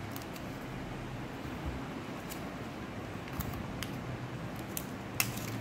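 Faint scattered clicks and light rustling as fingers handle a smartphone and pick at the plastic protective film on its screen, over a steady room hiss.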